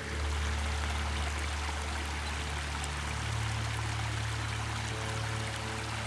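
Background music with held bass notes that change about three seconds in, over the steady rush of a stream.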